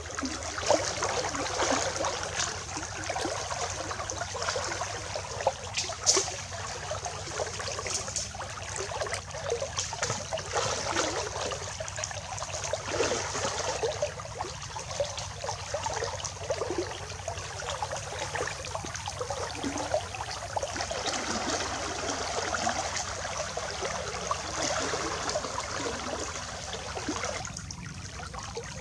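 Water splashing and trickling, with many small irregular splashes throughout.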